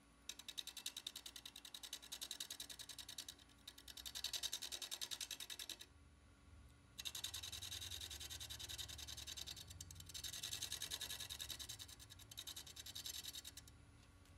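Sandpaper rubbing against a spinning ash workpiece on a wood lathe: a fast, evenly pulsing scratchy rasp in two long passes with a short pause between them.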